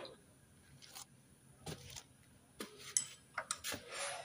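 Metal clinks and clatter from hand work on the timing-chain end of a bare engine: several separate sharp metallic taps spread over a few seconds, with a short scrape near the end.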